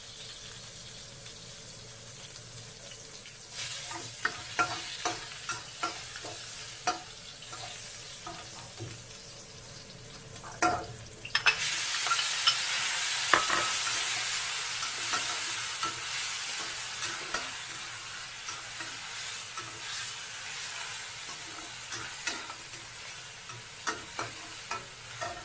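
Meat frying in a wok, with a metal spatula scraping and tapping against the pan. About eleven seconds in, a bowl of dough strips is tipped in and the sizzle jumps suddenly louder, then slowly eases as they are stir-fried, with the spatula clicking throughout.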